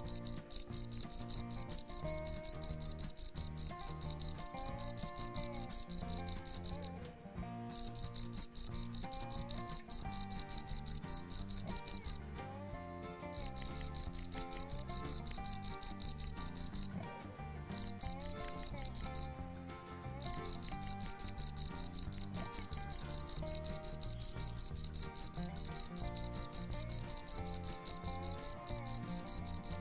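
Male cricket (dế mèn) calling by rubbing its raised wings together: a loud, rapid chirping trill at one high pitch. The trill runs in long bouts broken by four short pauses.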